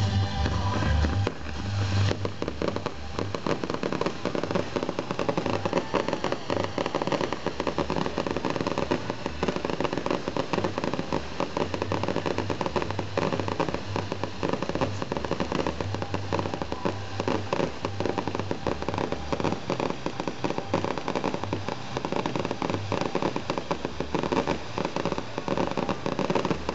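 Fireworks barrage: dense, continuous crackling and popping, a rapid stream of small sharp reports with no let-up.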